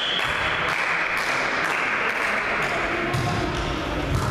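Steady crowd noise echoing in a sports hall during a volleyball rally, with a low thump near the end.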